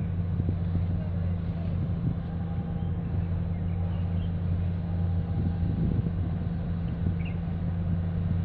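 Steady low drone of large ship engines heard across the water, even in level throughout.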